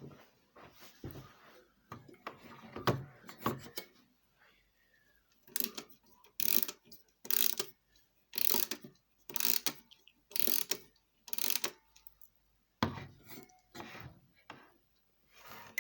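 Clockwork mechanism of a bird-on-a-swing automaton being handled and wound: a ratchet clicking in repeated strokes about once a second, with some looser rattling at first.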